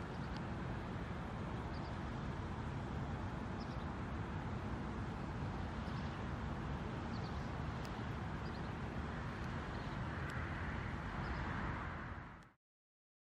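Outdoor ambience of steady road-traffic rumble with faint, scattered bird chirps; the traffic noise swells near the end, then fades out quickly.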